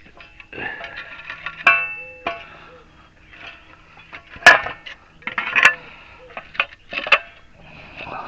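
Metal tools and parts knocking and clinking together, a run of sharp clanks with the loudest about four and a half seconds in; one clank near the two-second mark leaves a short metallic ring.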